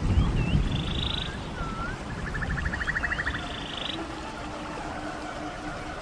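A songbird singing over the steady rush of a river: short swooping notes, each followed by a fast buzzy trill, repeated three times. A low rumble comes in the first half-second.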